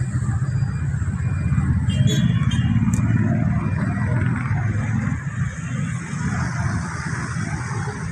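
Street traffic noise: a steady low rumble of road vehicles that swells to its loudest a couple of seconds in, as a car passes, and then eases off. A few brief high squeaks and a sharp click come through around two to three seconds in.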